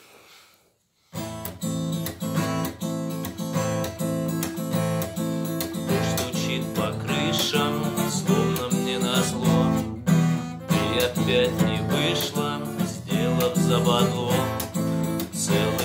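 Acoustic guitar strummed in chords with the six-stroke 'shesterka' strumming pattern, starting about a second in.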